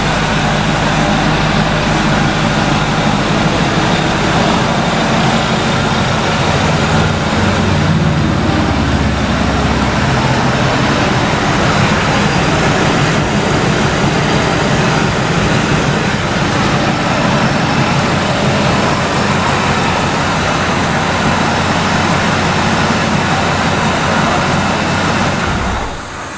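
2002 Ford SVT Lightning's supercharged V8 running steadily, its low engine note shifting about eight to ten seconds in.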